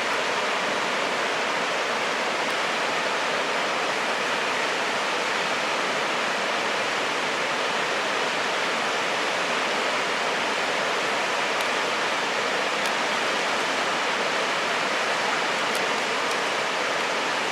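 Steady, even rushing noise outdoors with no gusts or breaks, of the kind made by strong wind through trees or a river below.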